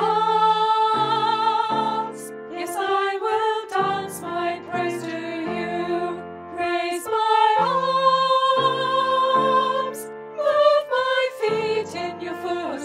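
A worship song sung by a voice over piano accompaniment, in short phrases.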